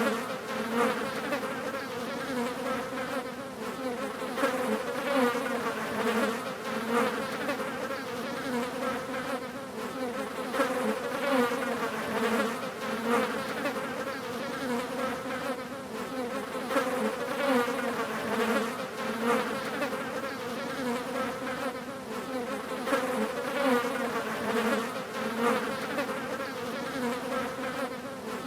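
Several flies buzzing continuously, a steady wavering hum whose loudness swells and fades every second or two.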